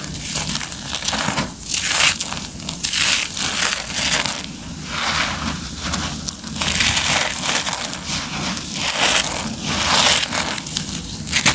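Dry, crumbly concrete lumps and loose gravel crushed and crumbled between bare hands, giving an uneven run of dry crunches, roughly one every second or so.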